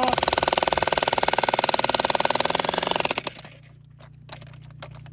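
Jackhammer hammering into rock with rapid, even blows, stopping suddenly about three seconds in. A steady low hum and a few light knocks remain.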